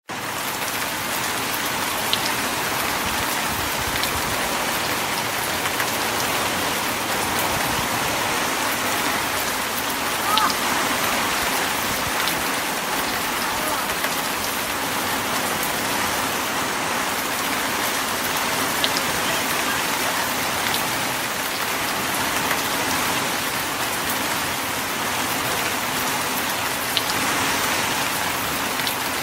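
Steady hiss of heavy rain falling on surfaces, with scattered sharp drop ticks.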